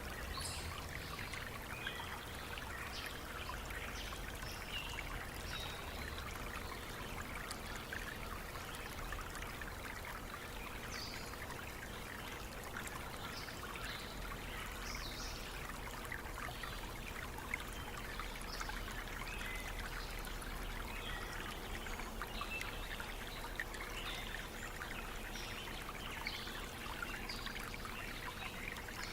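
Stream water running steadily over rocks, a constant babbling and trickling.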